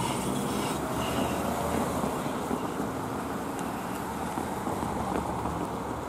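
A diesel train approaching in the distance: a steady low engine sound mixed with road traffic noise.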